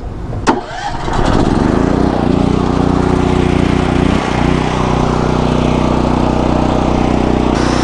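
DuroMax XP12000EH portable generator's engine starting on gasoline with the choke on. It catches about half a second in and revs up over a couple of seconds. It dips briefly around four seconds in, then settles into a steady run.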